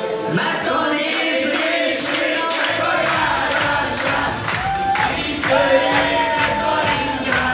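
A man sings through a microphone with a group of men singing along. About three seconds in, backing music with a steady beat comes in and the group claps along.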